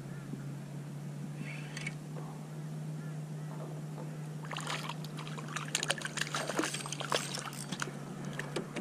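Water sloshing and splashing around a kayak, with a steady low hum; about halfway through come a dense run of sharp splashes and drips.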